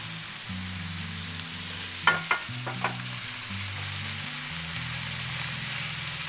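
Salmon head, bell peppers and spring onions sizzling steadily in a nonstick frying pan while being turned with wooden chopsticks. About two seconds in come four sharp clicks of the chopsticks.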